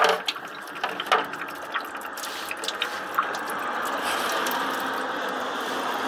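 Automatic transmission fluid running in a steady stream from an Allison transmission's valve body into a metal drain tray. It grows louder after the first couple of seconds, with a few clinks near the start.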